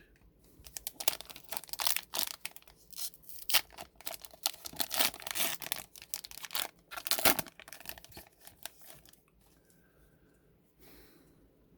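Wrapper of a trading card pack being torn open and crinkled, a dense crackling for several seconds that dies down about three quarters of the way through.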